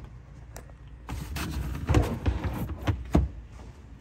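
Handling noises in an SUV's rear cargo area: a stretch of rustling and light rattling from about a second in, with several sharp clicks and knocks, the loudest knock just after three seconds.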